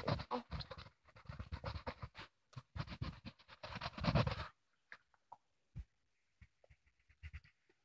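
Rapid back-and-forth colouring strokes scratching on a colouring-book page for about four and a half seconds, then stopping, with a few light scattered clicks after.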